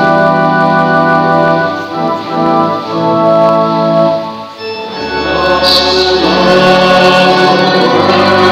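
Church organ playing held chords, then about five seconds in a recessional hymn begins, with voices singing over the organ at the close of Mass.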